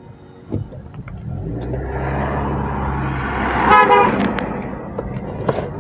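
Car driving on a road: engine hum and road noise swell up, and a vehicle horn gives a short toot about four seconds in.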